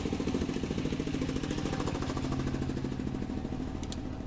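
A small engine running steadily with an even, rapid pulse. A brief metallic clink sounds near the end.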